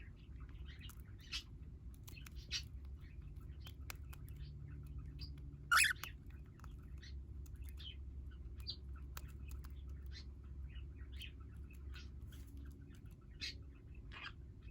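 Small pet parrots, a cockatiel among them, giving short scattered chirps, with one louder call about six seconds in, over a steady low hum.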